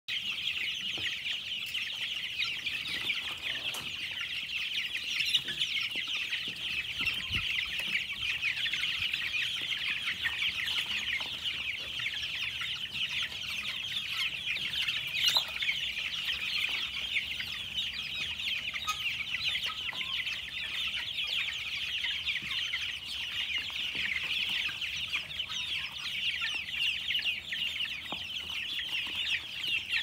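Dense, continuous peeping of a large flock of meat-bird chicks, many high chirps overlapping into a steady chorus. A few sharp clicks stand out, the loudest about 5 and 15 seconds in.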